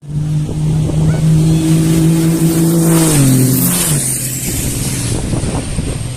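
Racing truck's diesel engine running hard at a steady high pitch, which drops over about a second, a little after three seconds in, as the truck goes by. It is followed by rougher engine noise.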